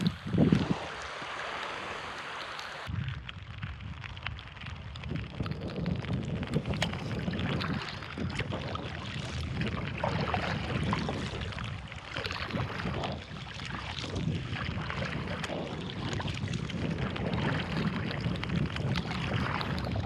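Wind buffeting the microphone at first; from about three seconds in, water splashing and lapping around a sea kayak's bow as it is paddled through shallow water.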